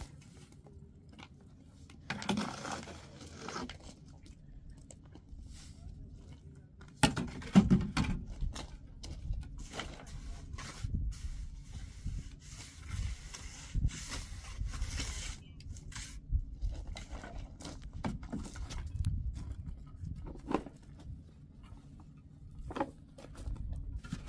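Irregular scraping, rustling and knocking of things being handled by hand, mostly quiet at first and busier from about seven seconds in, with a low rumble underneath.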